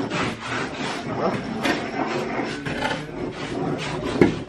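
Indistinct voices over irregular knocks and clatter, with one louder knock about four seconds in.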